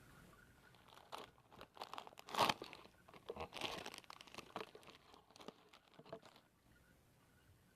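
Plastic snack wrapper crinkling and tearing in a quick, irregular run of crackles, loudest about two and a half seconds in and dying away after about six and a half seconds.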